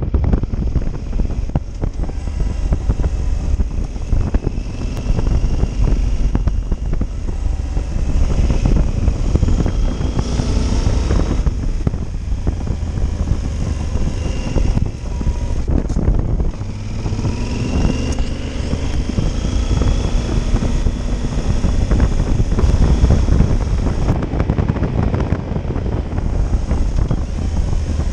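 Yamaha Super Ténéré's parallel-twin engine running while riding, its pitch climbing and falling twice as it accelerates and eases off, over a heavy low rumble of wind and road noise.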